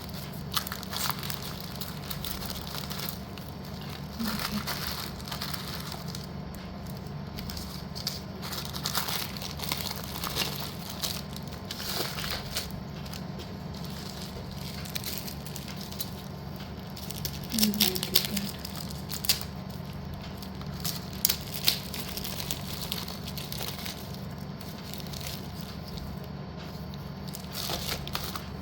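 Plastic packaging crinkling and pieces of slate clicking against each other as they are handled, over a steady low hum.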